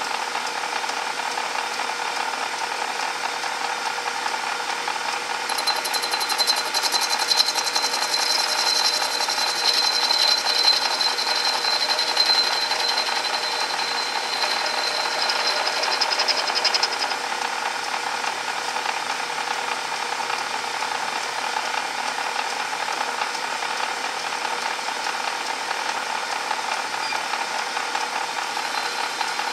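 Small bench lathe running steadily while a tool bit turns the end of a brass rod. A high-pitched whine joins in from about six seconds in and stops at about seventeen seconds, while the tool is cutting the brass.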